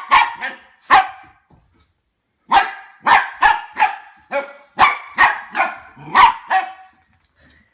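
Goldendoodle puppy barking in short, sharp barks: two near the start, then, after a pause, a quick run of about ten more. The puppy is barking warily at a new plastic toy ball that it is afraid of.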